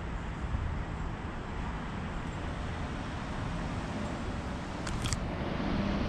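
Steady hum of passing road traffic, with two quick high clicks close together about five seconds in.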